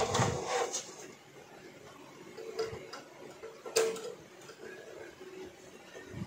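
Handling rustle, then a few light clicks as multimeter probe tips tap and scrape on the metal switch contacts inside a rice cooker's base, the sharpest click nearly four seconds in.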